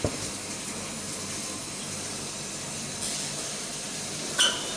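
Open oven running with a steady hiss while a tray of empanadas bakes, with a short, sharp knock near the end.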